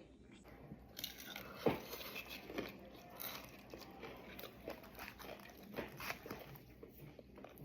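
Person biting into and chewing fried catfish: faint, irregular crunches and mouth sounds, with one sharper crunch about two seconds in.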